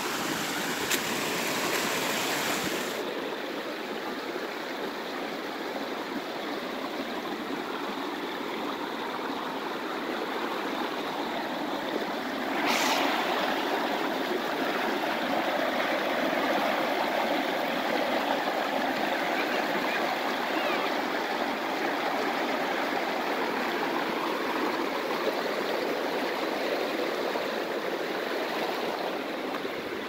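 Shallow river water rushing and splashing over rocks in small rapids, a steady noise that grows louder about twelve seconds in.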